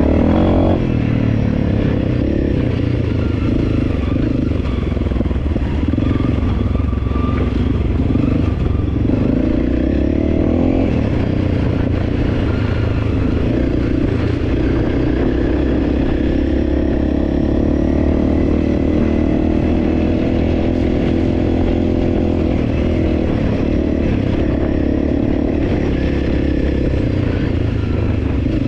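Honda CRF300L's single-cylinder four-stroke engine running as the bike rides a dirt track, heard from on the bike itself, its pitch shifting a little with the throttle.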